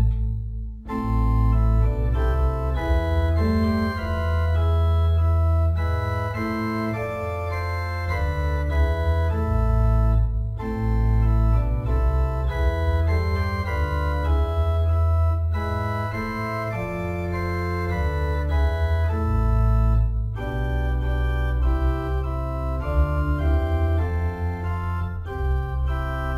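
Organ playing slow held chords over a deep bass line, changing every second or two, with a few short breaks between phrases.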